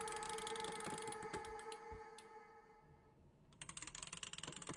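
Rapid mechanical clicking and ratcheting of a small wind-up tin soldier toy's clockwork. The clicking runs for about two seconds, stops, and resumes near the end.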